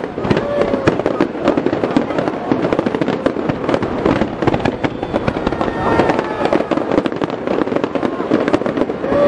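Fireworks display with many shells going off at once: a dense, continuous volley of overlapping bangs and crackles with no pause.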